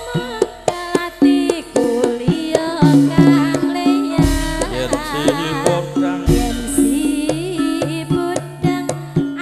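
Javanese gamelan music for tayub dancing, played through a sound system: frequent hand-drum strokes over held metallophone notes, with a singer's voice wavering in pitch around the middle.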